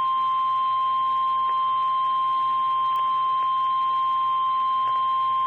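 Emergency alert warning tone: a single loud, steady beep held unbroken, the NOAA Weather Radio 1050 Hz alarm that signals a severe thunderstorm warning is about to be read.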